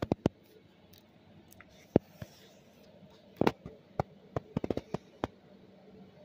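Paper pages of a large picture book being turned and the book handled: a string of sharp paper snaps and clicks, three in quick succession at the start and a rapid cluster around four to five seconds in.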